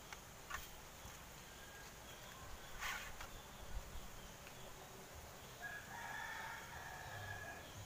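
A rooster crowing once, a long call of about two seconds in the second half. About three seconds in there is a brief rustle and click as an arrow is picked up and nocked on the bow.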